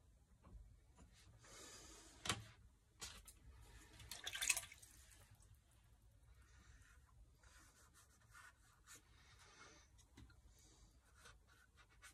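Quiet desk sounds of a dip pen and paintbrush: faint scratching of the pen nib on sketchbook paper, a sharp click a little over two seconds in, and a brief rustle about four and a half seconds in as one tool is set down and the other picked up.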